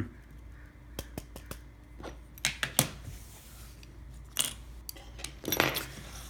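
Light metallic clicks and small clatters of tools and tiny phone parts being handled on a repair bench, in scattered groups, with the loudest cluster near the end.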